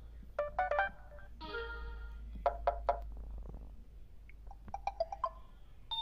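Samsung Galaxy Y's built-in ringtones previewed one after another. About four short electronic chime melodies each play for half a second to a second before being cut off by the next.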